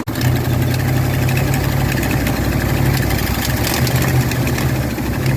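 1961 Ford Galaxie V8 idling steadily on a replacement carburettor, with a low, even drone. The owner says it still needs its manifold sorting out.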